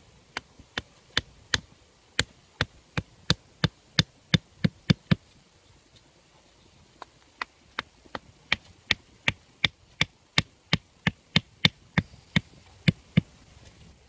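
Rhythmic knocking of a bamboo stake being driven into the ground, about three blows a second, in two runs with a pause of about two seconds in the middle.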